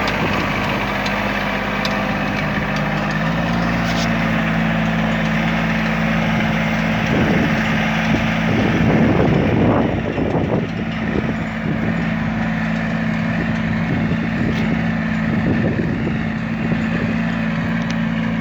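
Tractor engine running steadily, its pitch stepping up slightly about three seconds in. There is a louder, rougher stretch around the middle.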